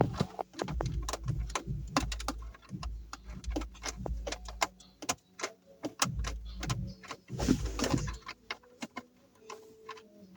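Phillips screwdriver working a long screw out of a car's dashboard trim: a run of small metallic clicks and scrapes, with knocks and rumbles from hands handling the panel.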